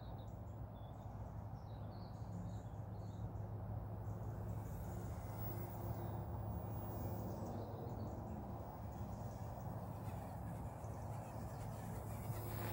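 Faint, steady buzzing hum of a small direct-drive electric RC helicopter, an OMPHobby M1 EVO, flying at a distance, growing slightly louder a few seconds in as it comes nearer. A few small bird chirps in the first few seconds.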